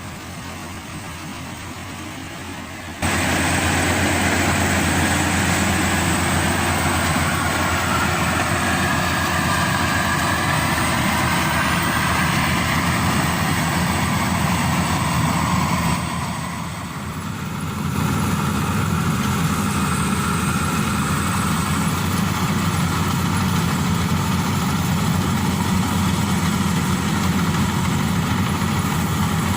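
Maxxi Bimo Evo Xtreme combine harvester running steadily while harvesting rice, its engine and machinery making a continuous mechanical drone. The sound jumps suddenly louder about three seconds in and dips briefly a little past halfway.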